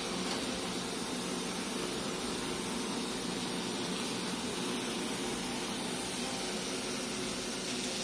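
iRobot Roomba e5 robot vacuum running: a steady whirr of its suction fan and brushes with a constant low hum.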